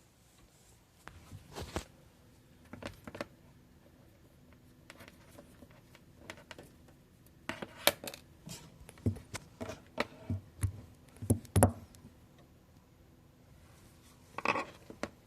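Hard parts of a microwave oven and its accessories being handled: scattered clicks and knocks with a few dull thuds, busiest in the middle, and a short rustle near the end.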